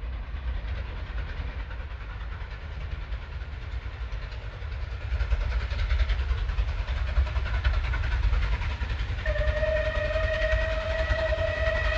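Steam locomotive working a train, its low rumble growing louder about halfway through. Near the end its whistle sounds one long, steady note.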